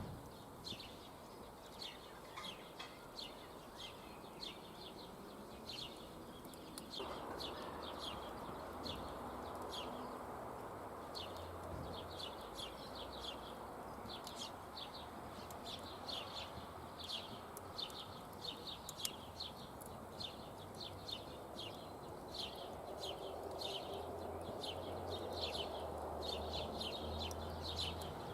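Small birds chirping over and over in quick short calls. A steady rushing noise comes in suddenly about seven seconds in and carries on under them.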